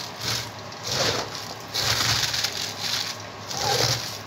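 Shredded white cabbage being rubbed and squeezed by hand with coarse salt in a stainless steel bowl: a run of irregular crunching, rustling squeezes. The salt rub softens the cabbage and shrinks its bulk.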